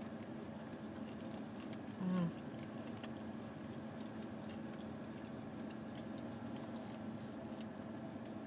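Quiet eating sounds close to a clip-on microphone: scattered soft clicks and rustles of chewing and handling takeout food, over a steady low hum. A brief pitched hum about two seconds in.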